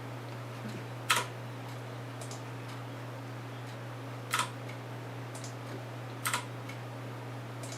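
A few sharp single clicks, about two seconds apart, over a steady low hum.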